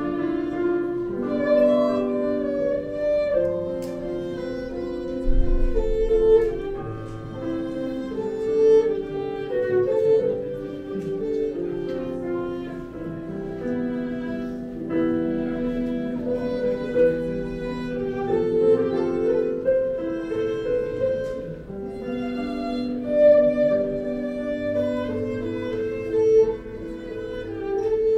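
Violin playing a slow melody of held notes, accompanied by digital piano.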